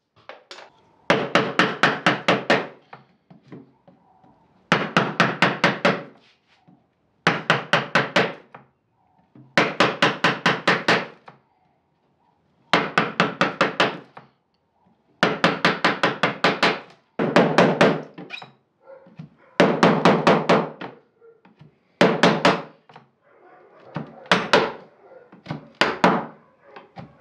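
A chisel being struck repeatedly to chop waste wood from a carved panel: runs of rapid sharp knocks, about six or seven a second, each run lasting a second or two with short pauses between.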